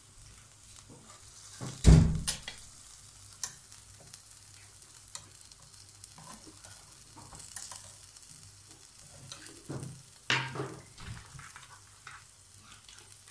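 Ground-meat patties and small meat skewers sizzling faintly on an electric grill's wire rack, with metal tongs clicking against the grate as patties are turned. A loud thump comes about two seconds in and another sharp knock near ten seconds.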